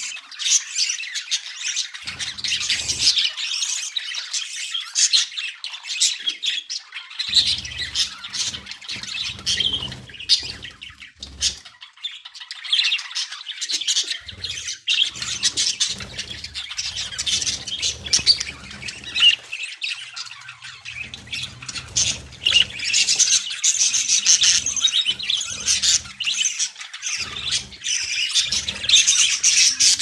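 Budgerigars chattering and squawking, many birds at once, in a continuous dense chatter of high chirps.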